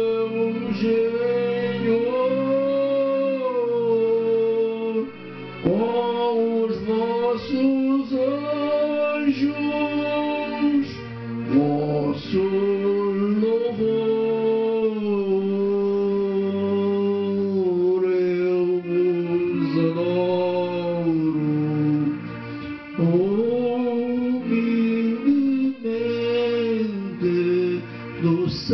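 A man singing a slow Portuguese Eucharistic hymn, accompanying himself on an electronic keyboard with held chords under the melody.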